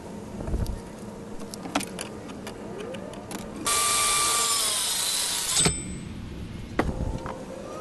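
DeWalt circular saw crosscutting a pine 2x4 for about two seconds. Its whine bends down in pitch partway through, then it cuts off suddenly. Before it, a few light clicks and taps.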